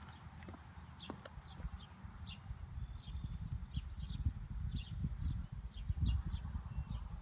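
Birds chirping in short, high, scattered calls over a steady low rumble.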